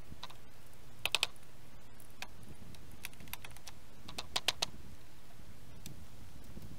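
Pneumatic air nailer being worked on wooden pallets: two quick bursts of sharp clicks, three about a second in and four a few seconds later.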